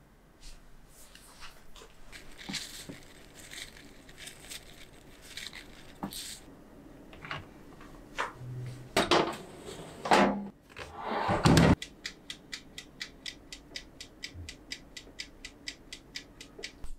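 Spoon scraping and tapping thick chocolate soufflé batter into ceramic ramekins, with a few louder knocks and clatter. Then, from about twelve seconds in, the mechanical dial timer of a countertop oven ticks steadily while the soufflés bake.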